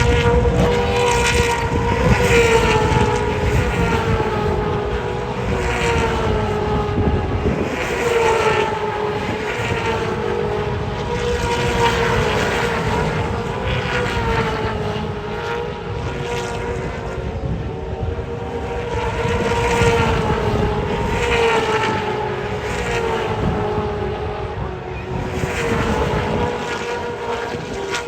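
V8 Supercars race cars at racing speed, their V8 engines running hard with no let-up, the engine note rising and falling again and again every couple of seconds.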